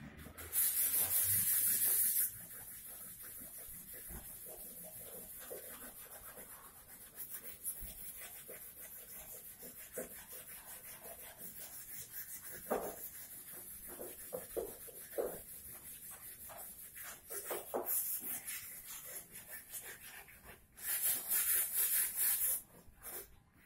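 Two loud bursts of hissing, each about two seconds long, one near the start and one near the end, with quieter scratchy rubbing and a few light knocks between them.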